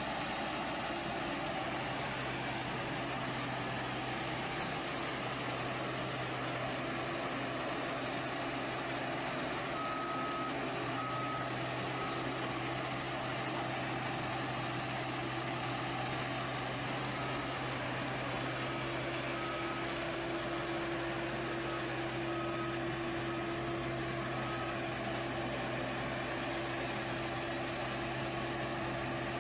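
Heavy vehicle's engine running steadily, with a reversing alarm giving two runs of short, evenly spaced beeps, about one a second, partway through.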